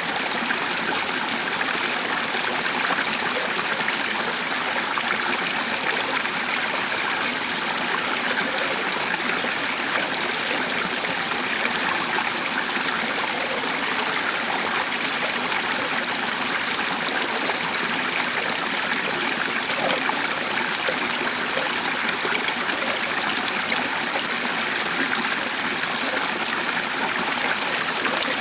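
Water in a stream running and trickling steadily, an even rushing hiss that does not change.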